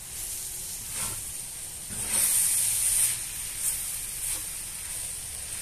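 Farofa of corn flour, bacon and chopped vegetables sizzling in a skillet while a wooden spoon stirs and scrapes through it. The hiss swells loudest about two seconds in, with a few short scrapes of the spoon.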